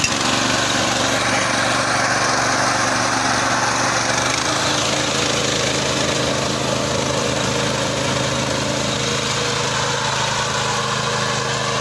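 Walk-behind fodder reaper's small petrol engine running steadily under load as its cutter bar mows through tall jhenjua grass. The engine note shifts slightly about four seconds in.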